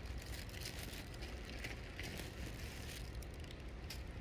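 Sea water lapping and fizzing among shoreline rocks, heard as an irregular crackling over a steady low rumble of wind on the microphone.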